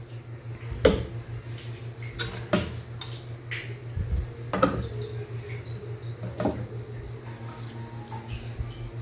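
Spoon and dishes clinking and knocking as cooked macaroni is spooned into a bowl: about five separate knocks spread over several seconds, over a steady low hum.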